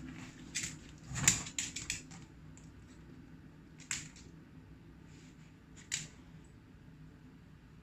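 A series of sharp clicks and knocks: a quick cluster about a second in, the loudest of them near its start, then two single clicks a couple of seconds apart.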